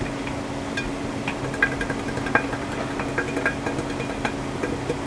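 Flour being shaken and tapped around inside a greased round metal cake pan: faint scattered taps and rustles over a steady low hum.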